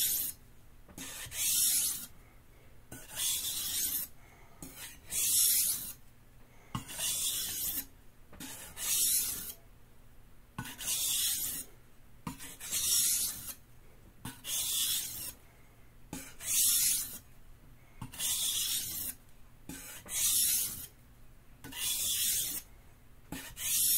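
Steel santoku blade drawn edge-on across a whetstone, a scraping hiss about once a second with alternating stronger and softer strokes, refining the edge on the stone by hand.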